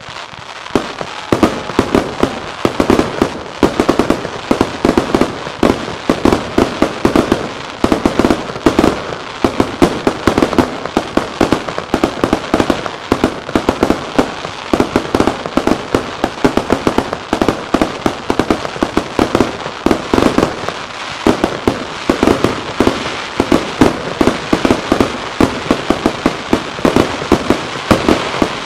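Fireworks barrage: a starmine of shells bursting in rapid, overlapping succession, many loud bangs a second, starting abruptly and continuing without a break.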